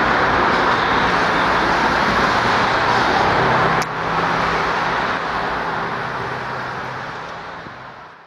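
Freight train cars rolling across a railway bridge, mixed with cars driving on the road beneath, as a steady dense rushing noise. A sharp click comes about four seconds in, after which the noise is quieter with a low steady hum, and everything fades out at the end.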